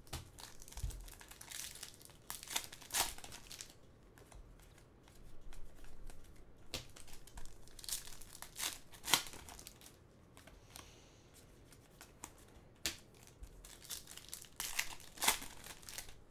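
Hockey trading cards flipped through and slid against one another by hand, with a string of short crinkly rustles of card and plastic sleeve.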